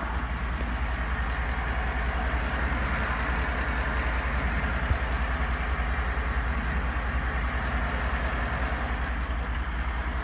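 Steady low vehicle rumble with a hiss, even throughout.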